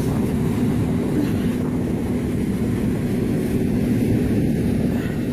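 Steady low rumble of a running engine, with a faint steady hum in it.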